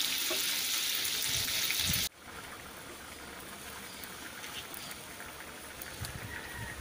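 Pork and chicken pieces sizzling loudly in a hot wok. About two seconds in this cuts off abruptly to a quieter, steady bubbling of adobo sauce boiling down in the wok, with a few faint ticks.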